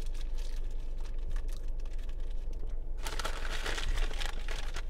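Plastic food wrapper crinkling and rustling in the hands, loudest in a dense burst about three seconds in, over a low steady hum.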